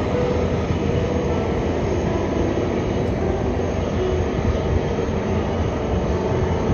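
Steady, continuous jet engine noise from an airliner.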